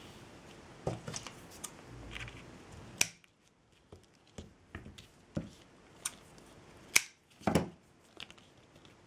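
Small clicks and taps of hand craft work with tools and jute cord. Two sharp clicks come about three and seven seconds in, with a short dull knock just after the second.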